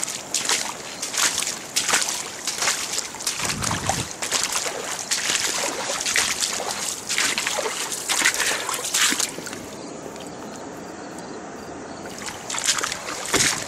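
Footsteps squelching and splashing across waterlogged grass and shallow floodwater at a walking pace. The steps pause for a couple of seconds about ten seconds in, then a few more follow near the end.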